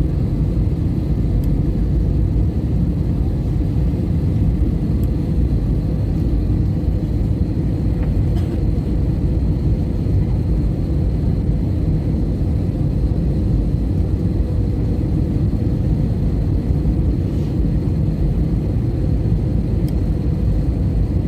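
Steady low rumble inside the cabin of an Airbus A320-family airliner: engine and airflow noise, with a faint steady high whine above it.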